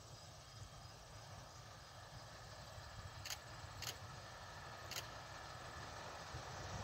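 Faint, distant two-foot gauge steam locomotive approaching, a low rumble that grows slowly louder. Three short, sharp high ticks come a little past halfway.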